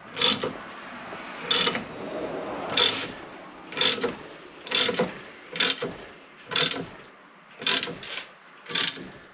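Hand ratchet clicking in repeated short strokes, about one a second, as it turns the forcing screw of a Maddox MA10-1 ball joint press to press a new lower ball joint in. Each stroke gives a sharp metallic click with a brief ring, with the screw near the end of its thread.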